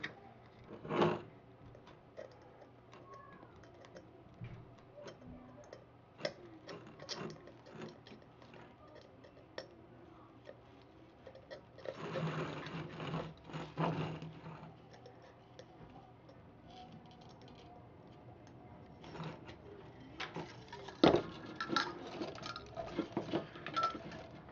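Thin aluminium drink cans handled on a tabletop: scattered small clicks, taps and crinkles of the can metal, with a longer rustling scrape about halfway through. Near the end comes a quick run of sharper clicks and taps as the two cans are brought together end to end.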